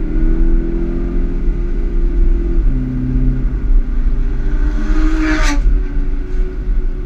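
Car engine at track speed heard from inside the cabin over a steady road rumble; the engine note steps down in pitch about two and a half seconds in and climbs again near five seconds. A short sharp burst stands out about five and a half seconds in.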